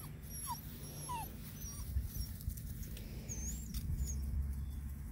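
Puppies whimpering, with three short, high, falling whines in quick succession in the first second or so.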